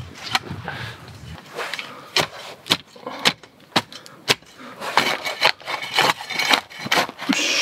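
Small camp shovel digging into soft, loose soil: the blade chops into the ground about twice a second, then scrapes and scoops dirt more quickly towards the end.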